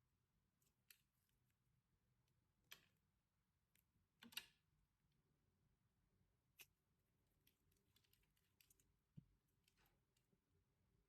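Faint, scattered crackles and clicks of a wax coating cracking on a squishy toy as it is squeezed, the loudest a little over four seconds in.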